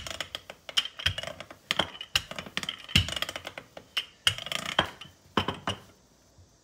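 Wooden handled rolling pin rolling out dough on a countertop: a run of irregular knocks and clacks as the pin works back and forth, stopping about six seconds in when the pin is set down.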